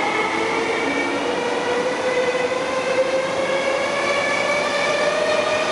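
MTR SP1900 electric multiple unit pulling out of the station, its traction motors whining and slowly rising in pitch as it gathers speed over the steady running noise of the carriages on the rails.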